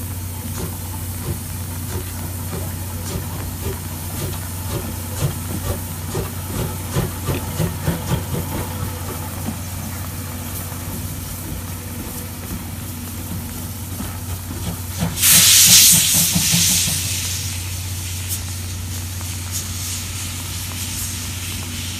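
C58 steam locomotive working, a run of exhaust chuffs a few seconds in over a steady low hum, then a loud blast of steam hiss about fifteen seconds in that tails off over a couple of seconds as steam billows from the cylinders.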